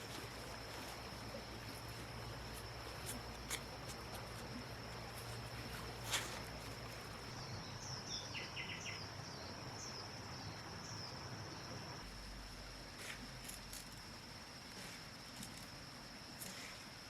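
A steady high-pitched insect drone, with a few short chirps about eight to eleven seconds in and scattered faint clicks.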